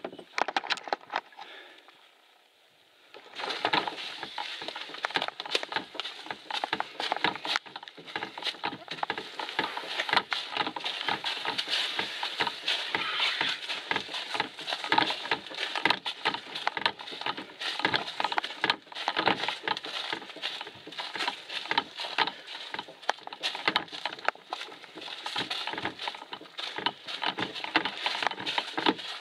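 Footsteps walking a forest portage trail at a steady pace, crunching twigs and dry leaves underfoot. They start about three seconds in, after a short quiet spell.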